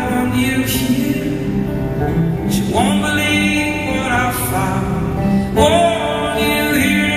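A man singing live while strumming an acoustic guitar, his voice sliding up into held notes twice over the steady guitar.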